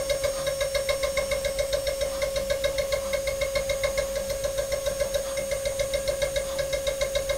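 CNC engraving spindle cutting a dotted texture into a gold bangle: a steady whine that pulses evenly about six or seven times a second as the cutter strikes the metal.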